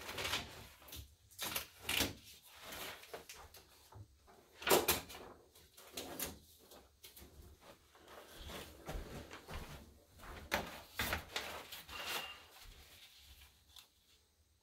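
Irregular handling noises: light knocks, scrapes and rustles as a sign panel and its perforated paper pattern are moved and lined up. The loudest knock comes about five seconds in.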